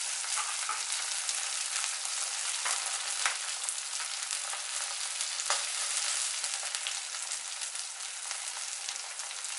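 Green chillies, ginger and garlic frying in hot mustard oil in a steel kadai: a steady sizzle with scattered small crackles.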